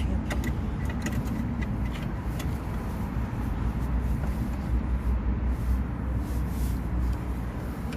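Hands fitting an H7 LED bulb into the back of a headlight housing: scattered small plastic clicks and handling noises, over a steady low rumble.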